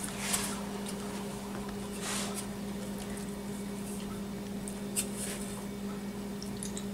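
A drinking glass pressed down onto sugared cookie dough balls on a baking sheet, making a few soft squishing, brushing sounds, over a steady low hum.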